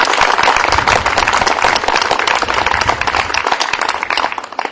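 Crowd applauding, a dense patter of many hands clapping that dies away near the end.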